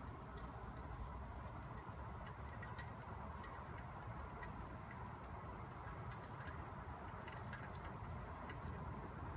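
Wet snow falling, pattering on leaves and wet pavement as scattered soft ticks over a steady low rumble.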